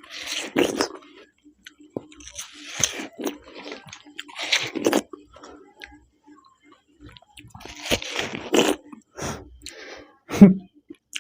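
Watermelon being bitten into and chewed fast, wet crunching in bursts every two or three seconds. A short loud voice sound comes near the end.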